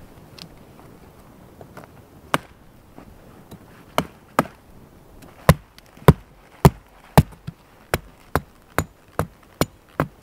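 Hatchet chopping through a thin pine pole: about a dozen sharp chops, a few spaced out at first, then a steady run of about two a second.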